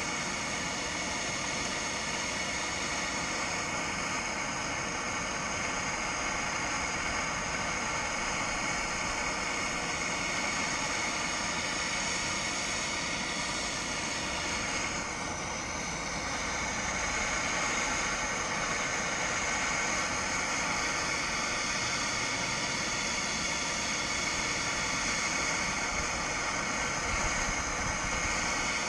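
MAP gas torch flame hissing steadily as it heats a boat's propeller hub to loosen the stuck propeller from its shaft.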